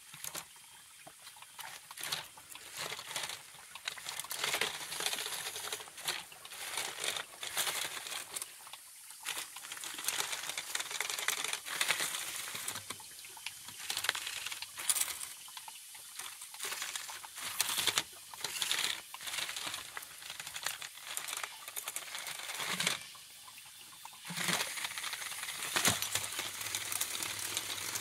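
Toy RC crawler's plastic roller wheels clicking, rattling and scraping irregularly as it climbs over wet rock and loose pebbles, with creek water trickling.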